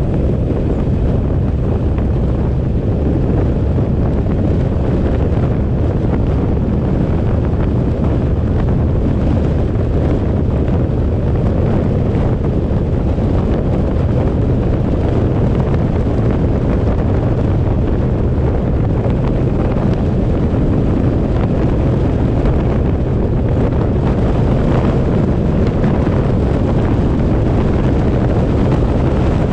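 Wind buffeting the microphone of a camera on a moving vehicle, a steady low rumble mixed with road and engine noise.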